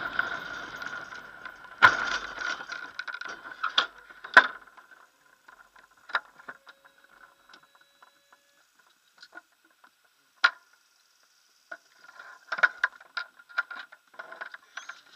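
A Nimbus-2 glider's ground roll on grass dies away over the first few seconds as it comes to a stop. A sharp knock comes about two seconds in, followed by scattered clicks and small knocks carried through the fuselage over a faint steady high tone.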